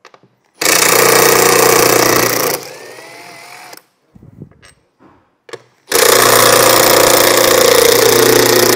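Cordless impact tool with a 13 mm socket hammering out the bolts that hold a factory roof rail, in two loud bursts: the first about half a second in, easing to a lighter whir as the bolt spins free, and the second starting about six seconds in. A few light clicks come between them.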